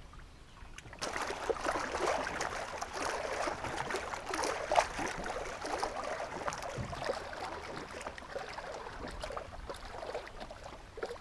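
Water splashing and sloshing: a continuous, irregular patter of small splashes that starts about a second in.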